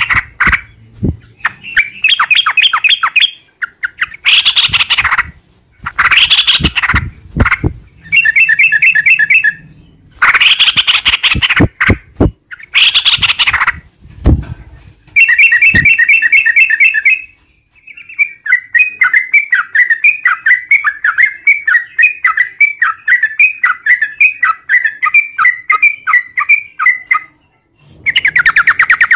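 Yellow-vented bulbul (trucukan) singing loud bursts of harsh, chattering phrases one after another, then a long rapid run of quick repeated notes lasting about nine seconds before more chatter near the end.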